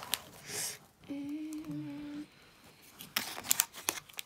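L.O.L. Surprise doll packaging crinkling and rustling as it is handled and unfolded, with the sharpest crackles about three seconds in. About a second in, a person hums one steady note for just over a second.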